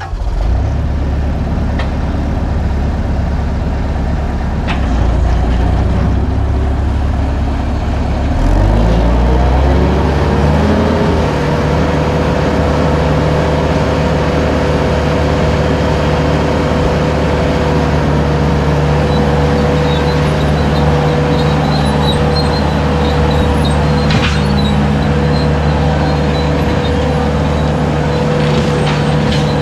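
Bobcat 873 skid steer's diesel engine running under load while it drives a 72-inch brush cutter on low-flow hydraulics. About a third of the way in the engine speeds up and a steady whine comes in and holds, with a few sharp knocks here and there.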